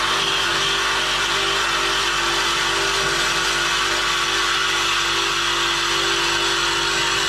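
Reciprocating saw (Sawzall) running steadily, its blade cutting through a truck's exhaust pipe.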